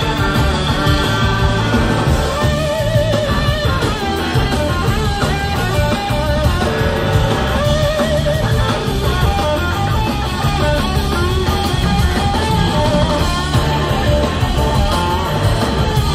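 Live blues-rock band instrumental: an electric slide guitar plays a lead line of gliding, wavering notes over bass guitar, organ and two drum kits.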